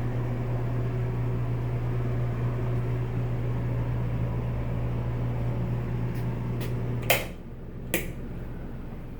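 A bathroom exhaust fan runs with a steady low hum, then cuts off with a click about seven seconds in. A second click follows about a second later.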